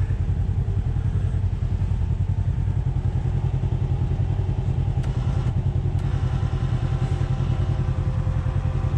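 Off-road buggy engine idling steadily with an even low pulse, and a couple of light clicks about five and six seconds in.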